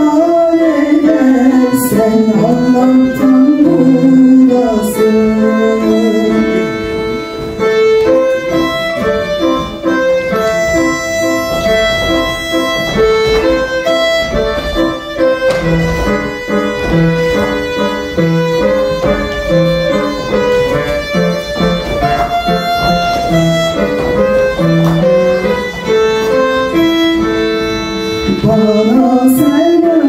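Music with a bowed-string melody of long held notes over chordal accompaniment; a low beat comes in about ten seconds in.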